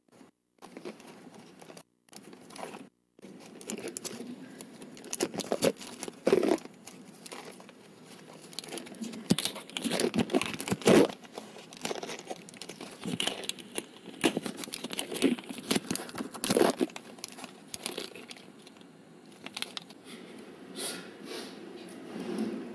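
Irregular crinkling, crackling and tearing of tape with close handling noise as beige tape is pulled off the roll and wrapped around a small camcorder. The first few seconds break up with brief cuts to silence.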